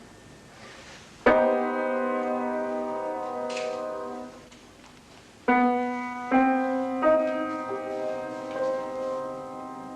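Instrumental music: a chord struck about a second in and left to ring for about three seconds, then three more chords struck in quick succession, ringing on together.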